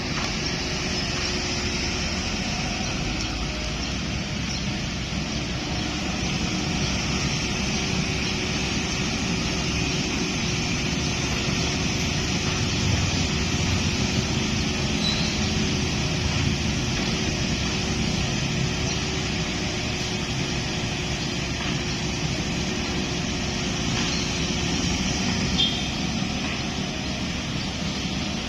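Kubota excavator's diesel engine running steadily under load, with a faint constant hum.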